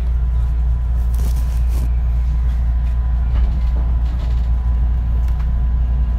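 Inside a JR West 223 series 1000-subseries electric multiple unit: a steady low rumble of the train's equipment and running noise, with a thin steady high tone and a few light clicks.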